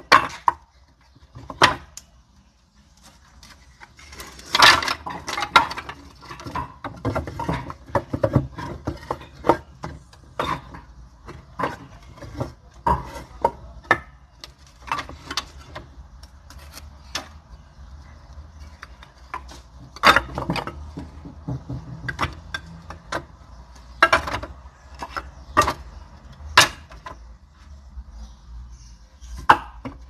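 Pieces of sawn firewood offcuts knocking and clattering against one another as they are handled, in irregular sharp wooden knocks, some in quick clusters, over a faint low hum.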